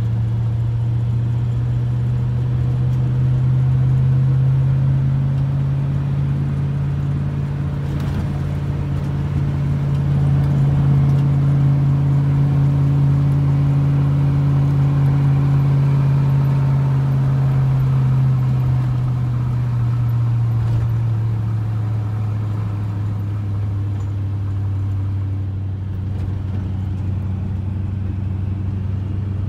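Chevrolet K30 squarebody pickup's V8 engine pulling steadily under a heavy load of wood, heard from inside the cab. The engine note rises a little through the middle and eases off again later.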